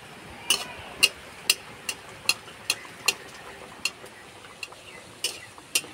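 Paratha deep-frying in a metal kadai with a steady sizzle of hot oil. A metal spatula knocks against the pan in sharp, ringing clicks about twice a second, starting about half a second in.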